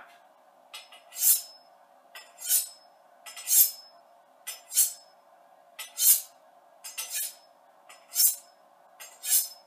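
Carbon-steel Sabatier chef's knife drawn along a honing steel, about eight strokes at a steady pace of roughly one every second, each a short metallic scrape and ring. An even, identical ring on every stroke shows the blade is held at a consistent angle; one stroke here, made at a slightly wrong angle, sounds different from the rest.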